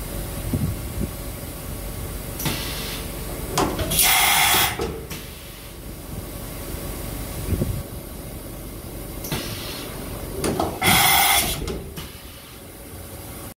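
Hyundai Wia KF4600 vertical machining center working through an automatic tool change: a low steady running with knocks as the spindle head moves, and two sharp hisses of compressed air of about a second each, one a few seconds in and one near the end.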